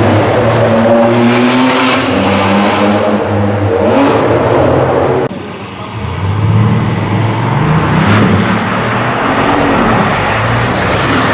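High-performance sports car engines revving and accelerating hard, the pitch rising and falling with throttle and gear changes. About five seconds in the sound cuts abruptly to another car accelerating.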